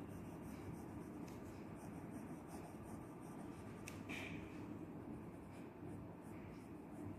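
Soft 6B graphite pencil shading on drawing paper: faint, steady scratching of the lead against the paper.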